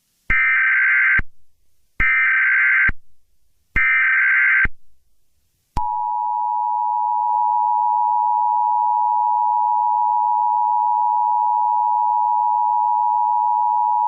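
Emergency Alert System header: three short bursts of digital data tones, each just under a second, then the steady two-tone attention signal, held for about eight seconds. Together they announce an incoming emergency alert, here a child abduction (AMBER) alert.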